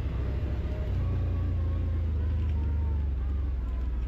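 Quad bike (ATV) engine running steadily while riding, a continuous low drone with no gaps.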